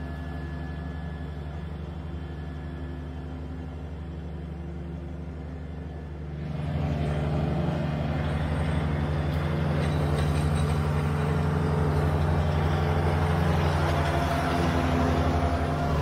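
Kubota compact diesel tractor running steadily at mowing speed with its mower deck engaged: a steady engine hum under a wash of blade and machine noise, which grows louder and brighter about six seconds in.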